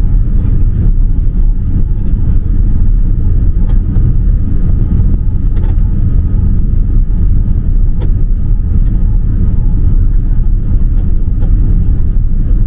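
Loud, steady rumble inside the cabin of a Boeing 787-9 rolling out along the runway just after touchdown, with a few sharp rattling clicks scattered through it.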